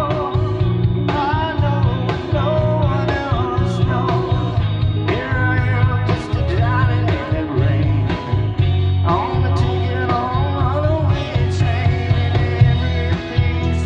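Live rock band playing: electric guitars over bass guitar and a drum kit, with a steady beat and a pitch-bending lead melody on top.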